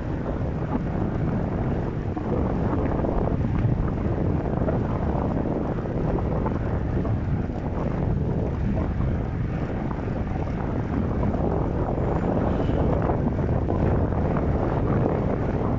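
Strong gusty wind buffeting the microphone of a cyclist riding, a loud, steady rushing noise with a deep rumble.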